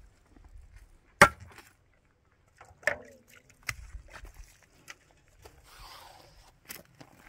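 A handful of sharp knocks at uneven intervals, the loudest about a second in, the next one followed by a brief ringing tone.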